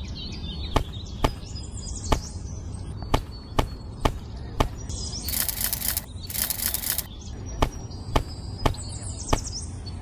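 Dried kidney beans dropped one at a time onto sand, a soft tap about twice a second. The taps pause for a couple of seconds about halfway through, while fingers scoop through a small bamboo basket full of beans, making two short rattling rustles.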